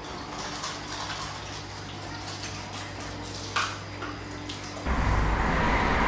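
Aquarium water trickling with a low steady hum; about five seconds in, a louder steady rushing noise abruptly takes over.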